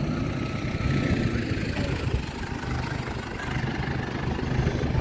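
An engine running steadily at low revs, a continuous low hum.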